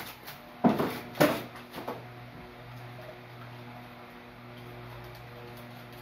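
A few knocks and bumps of objects being handled and a person moving about in the first two seconds, then a steady low hum.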